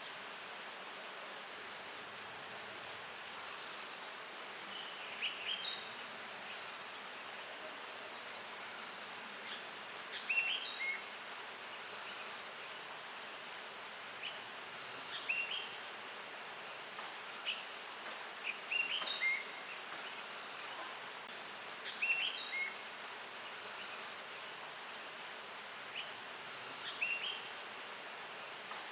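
Insects trilling steadily at two high pitches, with short, sharp bird chirps coming in small clusters every few seconds.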